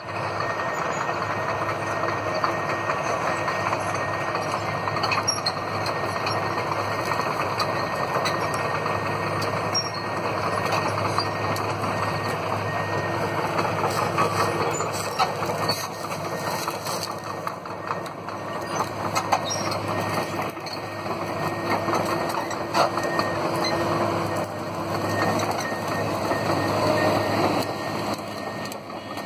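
Diesel engines and hydraulics of tracked excavator-based forestry harvesters (Komatsu PC200F carriers) running steadily at work, with scattered clicks and knocks and a thin steady high whine over the machine noise.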